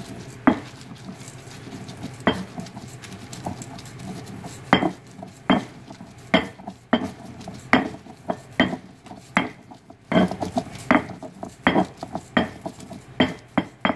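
Stone pestle (tejolote) pounding and grinding roasted green chiles with coarse salt in a volcanic-stone molcajete, making dull stone-on-stone knocks. The knocks are sparse at first, then come in a steady beat of a little more than one a second from about five seconds in.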